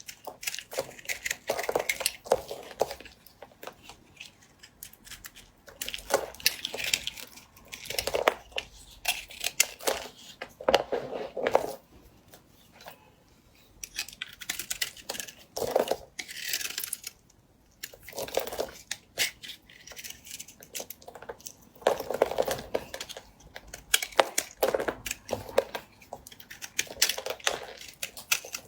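A knife cutting and scraping through bar soap in short bursts of fine crackling, separated by brief pauses.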